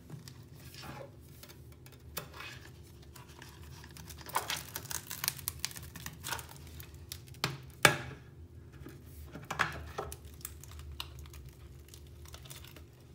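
A second-generation iPad Pro being bent by hand, its body and screen creaking and crackling. The sharp cracks come in a cluster through the middle, the loudest about eight seconds in.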